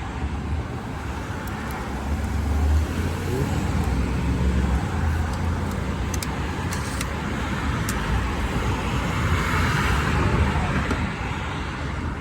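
Road traffic noise: a steady low rumble of passing vehicles that swells near the end, with a few light clicks in the middle.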